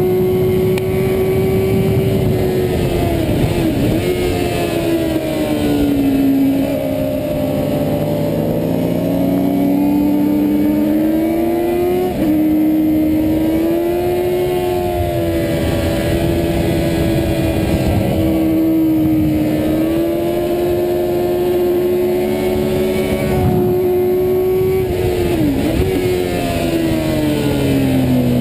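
Yamaha FZR400RR's 400 cc inline-four racing engine held at high revs, heard from the bike itself. Its pitch dips and climbs again several times through the stretch, with wind rush underneath.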